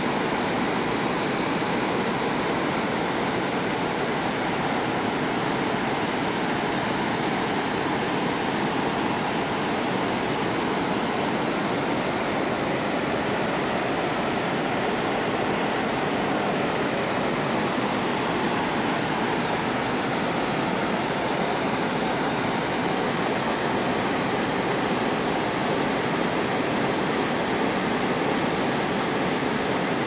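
Pedernales River running high over wide rock rapids: a steady, even rush of whitewater with no change in level.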